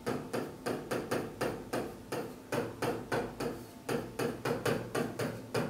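Pen tapping and clicking against a screen while letters are handwritten on it, quick short knocks about four a second.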